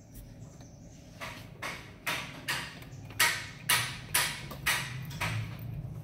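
Footsteps on a concrete floor, about two steps a second, starting about a second in, over a steady low hum.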